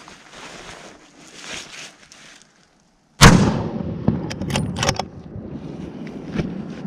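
A single loud rifle shot from a scoped bolt-action hunting rifle about three seconds in, sudden, with a long rumbling tail, followed by a few sharp clicks. Soft rustling comes before the shot.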